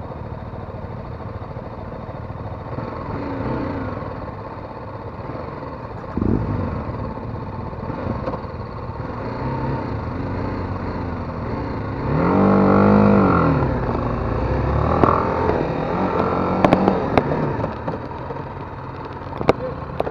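A motorcycle accelerating hard and then slowing, its engine note rising and falling about twelve seconds in, over a steady bed of engine and wind noise. A few sharp clicks follow near the end.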